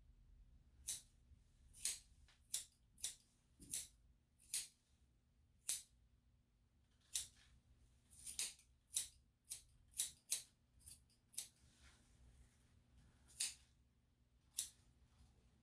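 Dog-grooming scissors snipping through hair in short, sharp cuts at an uneven pace, sometimes two or three a second, with pauses between runs.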